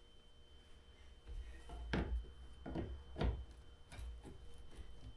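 Plastic push-pin clips and ATV body panels being handled: a few separate clicks and knocks, starting about a second in.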